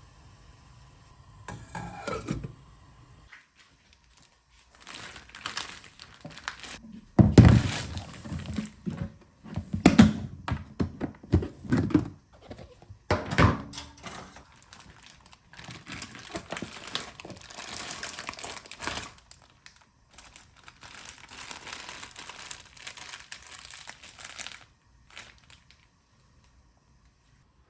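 Kitchen prep handling sounds: crinkling and rustling, broken by several sharp knocks, the loudest about seven, ten and thirteen seconds in, then a longer stretch of rustling.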